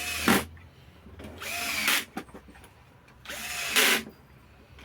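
Power screwdriver running in three short bursts, driving in the screws that close the jigsaw's housing.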